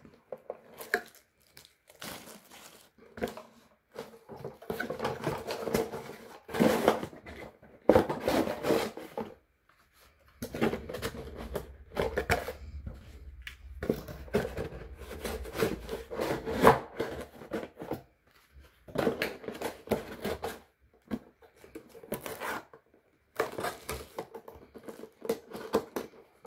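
Sticky tape being peeled and torn off a small cardboard box, and the box handled and rubbed, in irregular bursts of scraping and rustling.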